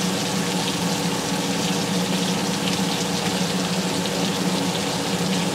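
Floured pork steak frying in hot grease in a cast-iron skillet: a steady sizzle with fine crackling, over a steady low hum. The grease is running hotter than intended.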